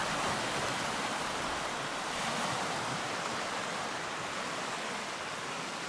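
Wind and small wind-driven waves washing onto a stony lakeshore, heard as a steady rushing hiss.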